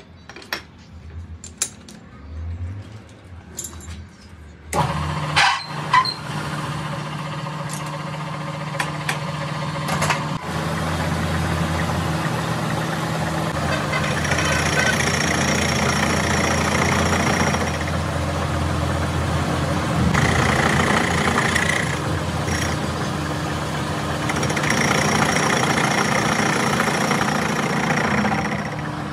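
A few light clicks, then about five seconds in a machine starts up and runs steadily with a low, even hum. It grows a little louder and brighter now and then.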